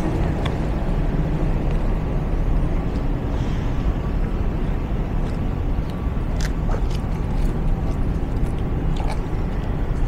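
Steady low rumble of outdoor city ambience, with a few light clicks scattered through it.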